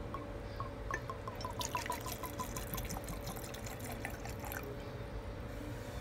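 Whisky glugging out of a glass bottle into a tall glass in a quick, even run of gurgles, about five or six a second. It starts with a clink of glass and stops after about three and a half seconds.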